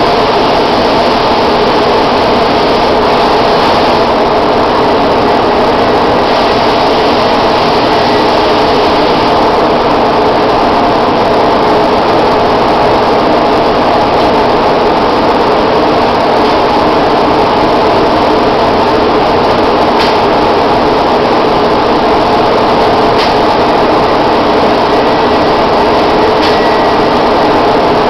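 Paint sprayer running steadily and loud, a dense even motor noise, with a few faint clicks in the second half.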